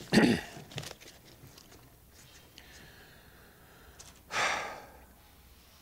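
A man breathing close to the microphone: a short burst right at the start and a longer breath about four and a half seconds in, with a few faint clicks between.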